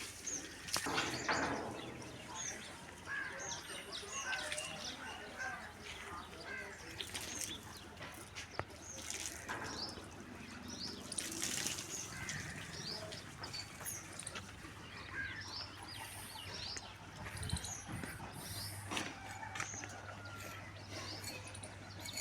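Many small birds chirping in short, scattered calls, with a few brief bursts of rushing noise.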